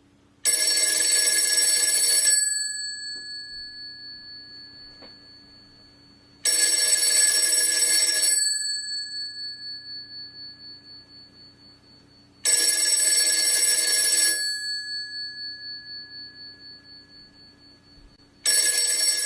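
Telephone bell ringing in about two-second rings, one every six seconds, four times; each ring dies away slowly with a wavering tail.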